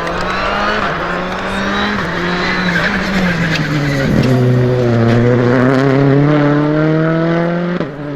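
Rally car engine driven hard through a stage, its note rising and falling with the gear changes. There is a sharp dip and recovery about four seconds in, then a long steady climb in pitch that breaks off abruptly near the end.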